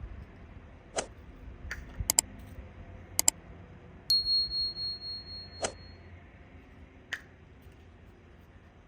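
Metal cooking utensils and cookware clinking in a series of sharp taps. One strike about four seconds in rings out as a high, pulsing metallic ding for about two seconds.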